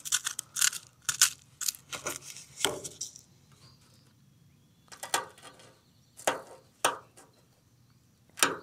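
Brittle carbonized papaya seeds being picked off the charred fruit and dropping onto a tabletop: a quick run of small clicks and crunches, then a few scattered clicks as the loose seeds are nudged about.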